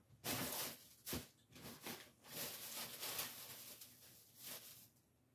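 Faint rustling and handling of paper and plastic craft materials, in uneven stretches, with a sharp tap about a second in.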